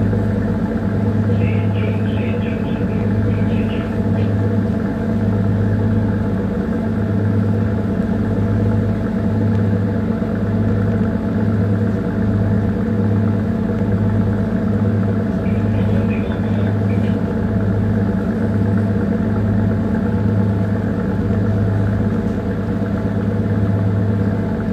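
A small tanker's diesel engine running steadily underway: a deep, even drone with a strong low hum and a slight regular pulse about once a second.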